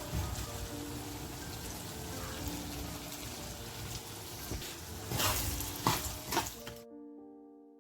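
Kitchen cooking sound: a steady rushing hiss, like running water or sizzling, with a few sharp clatters about five to six seconds in, cutting off shortly before the end. Soft piano music plays faintly underneath.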